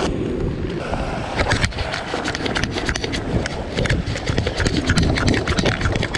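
Wind buffeting the microphone, with many irregular clicks and scrapes of footsteps in rock-fishing cleats as a person scrambles over sandstone rock.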